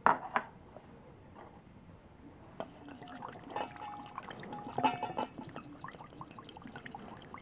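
Liquid being poured and dripped into a bowl of beaten egg yolk, with a utensil clinking against the bowl. Two sharp knocks right at the start, then a busy run of clinks with short ringing notes in the middle, thinning out near the end.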